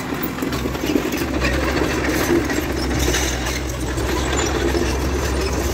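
Heavy diesel engine idling, a steady low hum that settles in about a second in.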